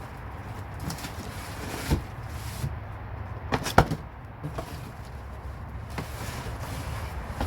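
Cardboard parts boxes and their contents being handled and opened, with a few sharp knocks, the loudest a pair a little before the middle, over a steady low hum.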